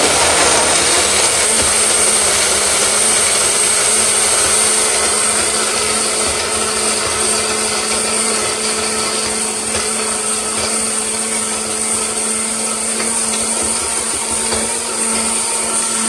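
Blender running steadily at a constant speed, blending fruit into a smoothie.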